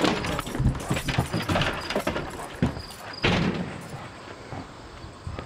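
A door clattering open, then irregular knocks and scuffs of a dog's paws and claws as it walks out, with a louder knock about three seconds in.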